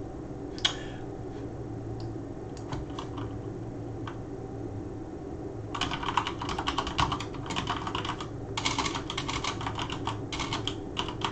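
Typing on a computer keyboard: a few scattered key clicks, then quick runs of typing from about six seconds in.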